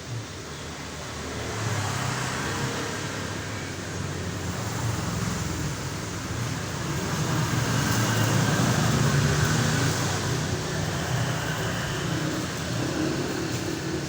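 Low rumbling noise like passing road traffic, swelling to its loudest about eight to ten seconds in, then easing off.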